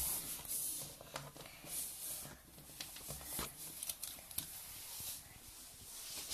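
Light scattered taps, scrapes and rustles of plastic toy dragon figures being handled and moved about on a wooden floor and a desk.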